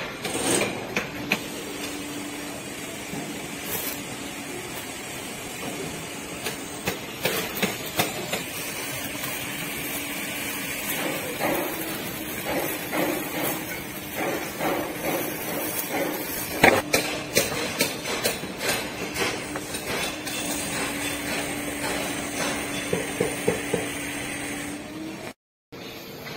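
Hammering at a construction site: irregular knocks and strikes, often in quick clusters, over a steady machine hum.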